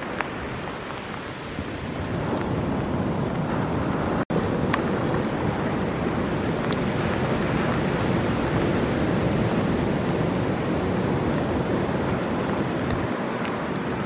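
Ocean surf breaking and washing, with wind buffeting the microphone. The sound cuts out for an instant about four seconds in.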